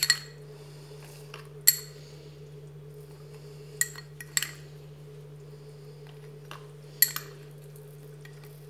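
A metal spoon clinking against a funnel as salt is pushed through it into a bottle of dish soap: about five sharp clinks at irregular intervals, over a steady low hum.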